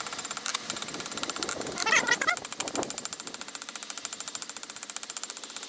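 Rapid, even hammer blows on glowing steel on a Peter Wright anvil, several strikes a second, each with a high ring off the anvil. This is the blacksmith doming the top of a forged nail header.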